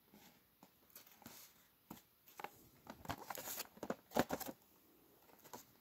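Cardboard toy boxes with plastic windows being handled and moved: scattered taps, scrapes and rustles, busiest about three to four and a half seconds in.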